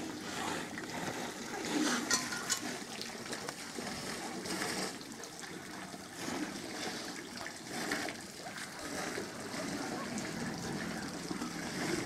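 Water splashing and trickling as a herd of African elephants drinks at a waterhole, sucking water up with their trunks and spilling it.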